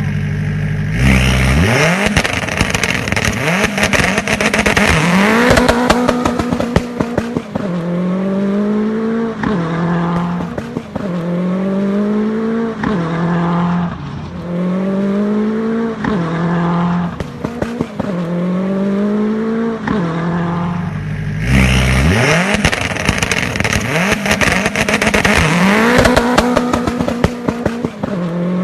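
Rally car engine accelerating hard, its pitch rising and dropping back every couple of seconds as it is driven on and off the throttle, with crackles throughout. About 21 seconds in, the hard acceleration and the run of revs begin again.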